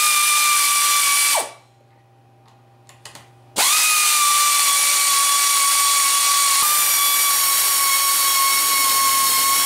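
Power ratchet on a long extension running fasteners out: a short burst of steady motor whine that sags in pitch as it stops, a pause with a few light clicks, then a long steady run of about six seconds.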